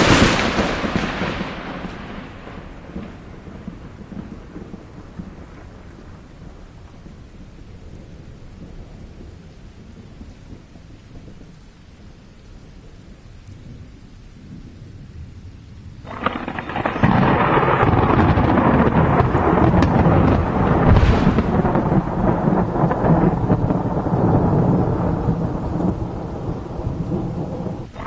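Thunderstorm: a sharp thunderclap right at the start that fades into a rumble over a couple of seconds, then steady rain. About sixteen seconds in, a much louder rush of heavy rain sets in abruptly and keeps going.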